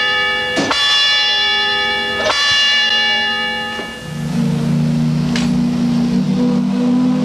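Ship's bell on the Mississippi Queen steam paddlewheeler struck twice, each stroke ringing on, then about four seconds in the boat's steam whistle sounds a long, deep chord. These are the departure signals after the call for visitors to go ashore.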